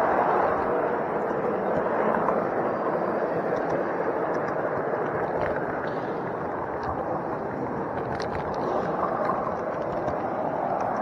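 Steady rumble of a model train running on its track, heard from a camera riding on a flat wagon, with a few faint clicks scattered through it.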